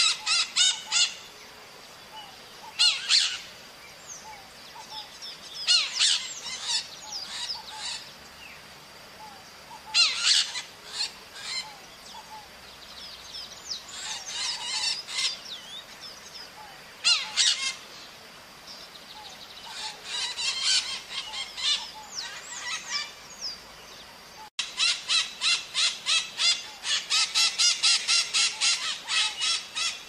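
Maritacas (parrots) giving harsh, screeching calls in short bouts every few seconds, over a faint steady high tone. After a cut about 25 seconds in, the calls come in a dense rapid run, about four a second.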